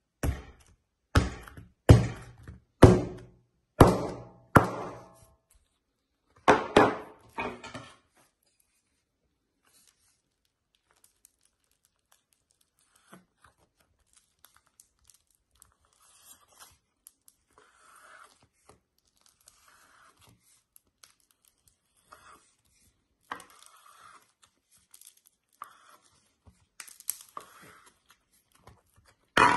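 Green floam (foam-bead slime) crunching and crackling as it is cut with a knife and squeezed by hand. About eight loud crunches come in the first eight seconds, each dying away quickly, then softer crackles and taps follow.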